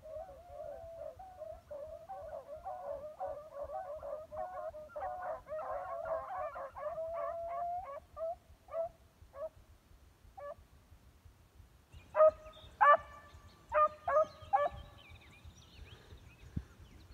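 A pack of beagles giving tongue on a scent trail: a steady run of overlapping bays and barks for the first half, thinning out. About two thirds of the way through come about five louder, closer barks.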